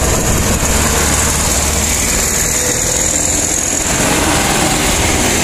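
Diesel engines of loaded sugarcane trucks pulling up a steep bend and passing close by, a steady heavy engine rumble with road noise that shifts slightly about four seconds in as one truck goes right past.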